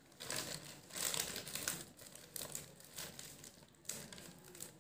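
Plastic courier mailer crinkling in short bursts, about one a second, as it is cut open with scissors.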